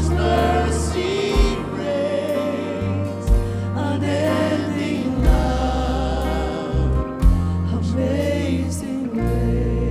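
A woman singing a worship song into a microphone over live band backing of long held bass notes, with a low beat about every two seconds.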